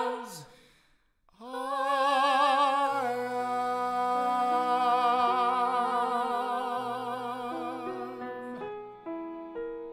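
End of a musical-theatre duet. A sung note breaks off, and after a short pause a long final note is held with vibrato over sustained accompaniment chords, slowly fading. Near the end a few soft piano notes follow one another.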